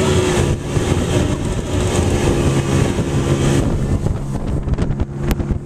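Motorboat engine running at a steady pitch, with wind buffeting the microphone; a few sharp clicks near the end.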